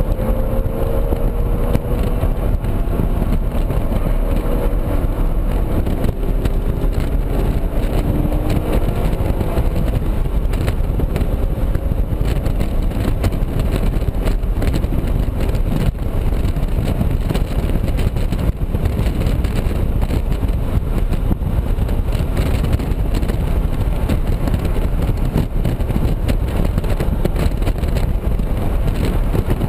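A 2007 BMW Z4 M Coupe's inline-six pulling hard on full throttle, heard from inside the cabin, with an aftermarket aFe intake. The engine note climbs slowly in pitch over the first ten seconds or so. After that, heavy wind and road noise at around 80–90 mph covers most of it.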